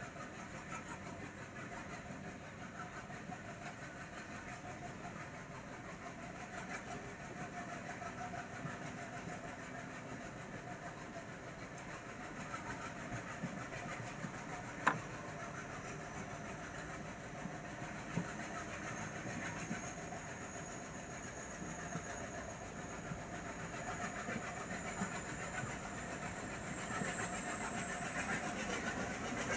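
Diesel-hauled passenger train running, heard from on board as a steady rumble of the moving coach. There is one sharp click about halfway through, and a thin high whine that slowly rises in pitch over the last ten seconds.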